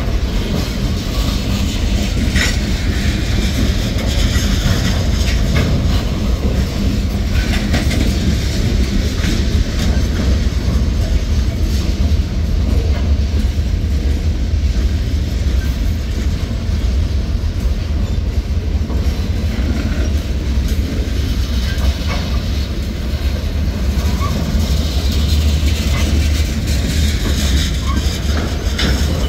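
Freight train cars rolling past: hoppers, a flatcar of wrapped lumber and tank cars. A steady low rolling noise with occasional sharp wheel clicks over the rails.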